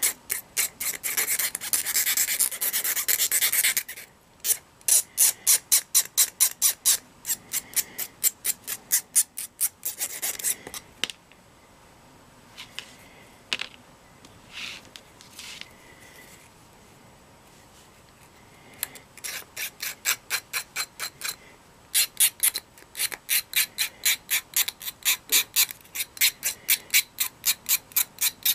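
A flat metal hand file rasping over the heat-cut end of a cord to smooth away its ridge and jagged edges. It goes in quick back-and-forth strokes, about three a second, in several runs, with a sparser stretch of a few single strokes in the middle.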